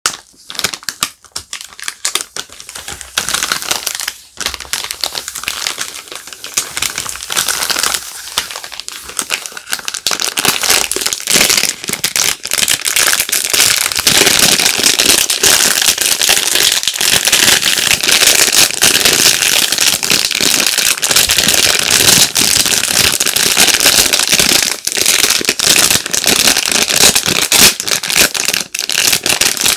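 Soap bar packaging being handled and unwrapped, crinkling and crackling: scattered crackles at first, becoming a dense, louder continuous crinkling about halfway through.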